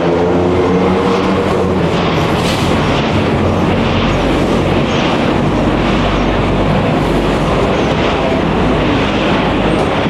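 Busy city traffic: vehicle engines running close by, with a steady low rumble. A pitched engine note fades away about a second in.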